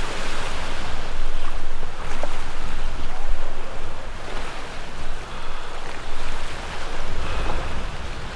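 Surf washing against a rock jetty, with wind buffeting the microphone. The noise swells and eases unevenly, with a heavy low rumble from the wind.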